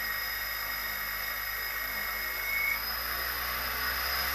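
Quadcopter brushless motors spinning their propellers on the bench for a vibration test: a steady high whine over a rushing hiss, with one tone rising briefly about two and a half seconds in.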